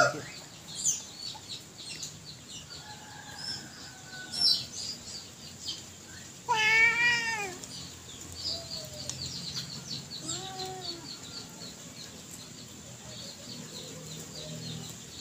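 Birds chirping outdoors throughout. About halfway through comes a louder wavering animal call lasting about a second, and a shorter call a few seconds after it.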